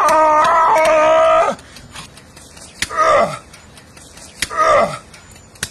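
A man's long strained yell during a sit-up, held for about a second and a half, then two short groans falling in pitch about a second and a half apart.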